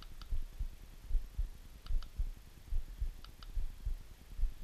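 Plastic push button of a battery-powered rear LED and laser tail light clicking as it is pressed and released to step through its lighting modes: a pair of short clicks about every one and a half seconds. Soft low thumps from the light being handled run underneath.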